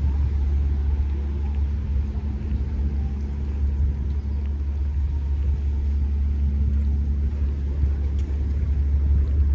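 Steady low rumble of wind buffeting a phone's microphone, with a faint steady hum under it.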